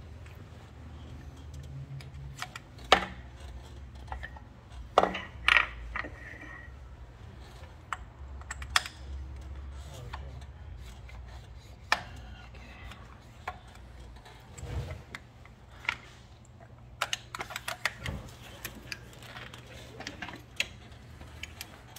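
Scattered clicks, knocks and metallic clinks as the plunger assembly of a rotary liquid filler is worked apart by hand, with the loudest knocks about three and five seconds in. A steady low hum runs underneath.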